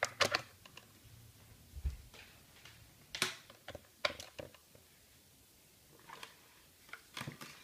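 Handling noise: a few separate sharp clicks and light knocks, the loudest about three seconds in, as a small tripod lamp stand and its power cable are moved about on a tabletop.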